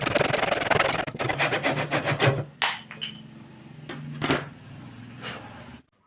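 Hand woodworking on timber: a dense, rapid scraping for the first two seconds, then about six separate sharp knocks, like taps from a hammer or mallet on wood, before the sound cuts off abruptly near the end.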